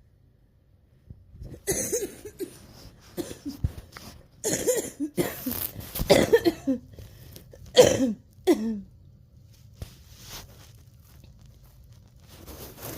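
A coughing fit: a run of harsh, closely spaced coughs starting about a second and a half in, loudest around eight seconds in, then dying away to faint breathing.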